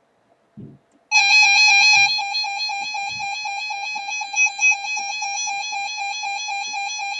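A pulsing electronic tone with a stack of overtones, starting about a second in. It is louder for its first second, then holds steady at a slightly lower level, pulsing several times a second.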